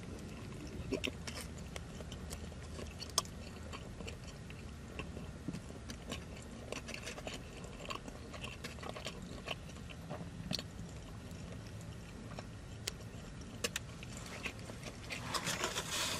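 Close-up chewing and biting of a brisket sandwich topped with crispy onions: soft wet mouth sounds with many small irregular crunchy clicks. Near the end a rustling starts up as the sandwich box is handled.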